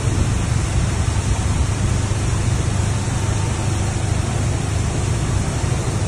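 Automatic bus washing machine running: a steady rush of spraying water and turning brushes over a constant low hum.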